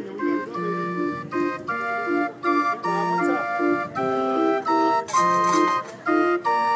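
Hand-cranked street barrel organ built by Orgelbau Stüber of Berlin, playing a lively tune: a piping melody over a regularly repeating bass note and chords.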